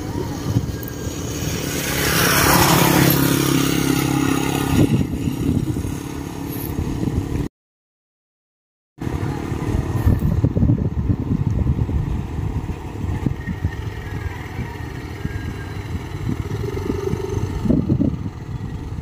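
Motorcycle engine running close by, swelling to its loudest about two to five seconds in, with gusty wind rumble on the microphone. The sound cuts out completely for about a second and a half midway.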